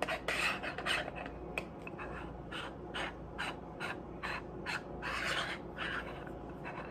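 Handling noise from a Monitech 4K compact digital camera held in both hands: fingers rubbing on its body and a string of small, irregular clicks as its buttons and controls are pressed.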